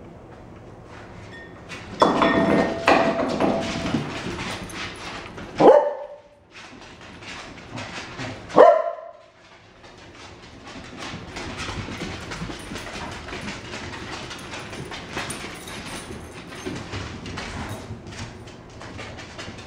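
Cardigan Welsh corgis playing: a loud burst of dog noise about two seconds in, then two sharp single barks a few seconds apart. After that comes a steady run of scuffling and small clicks, like claws on a hard floor.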